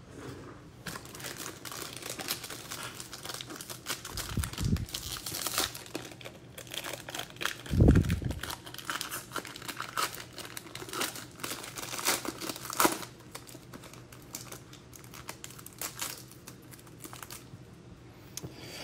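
Foil wrapper of an Upper Deck Stature hockey card pack crinkling and tearing as it is pulled open by hand. A dull thump comes about four seconds in and a louder one about eight seconds in.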